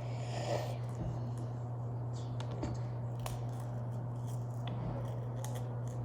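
Steady low hum with scattered small sharp clicks and a brief rustle in the first second.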